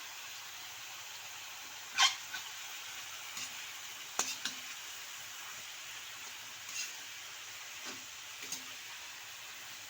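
A spatula clinking and scraping against a pan or wok during stir-frying, a handful of sharp knocks with the loudest about two seconds in, over a steady hiss.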